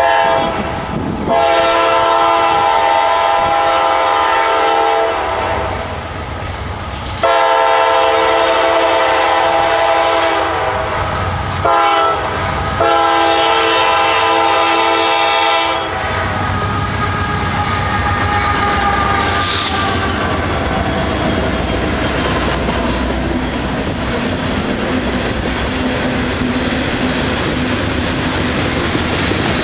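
CSX freight train: the lead diesel locomotive's multi-chime air horn blows the grade-crossing signal, long, long, short, long. The horn stops about 16 seconds in. Then the locomotives' engines rumble past, followed by freight cars rolling by with wheels clicking over the rail joints.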